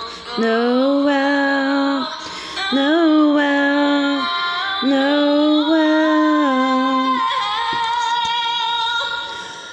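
A woman singing a slow carol melody solo, in long held notes with short breaks between them and no clear words.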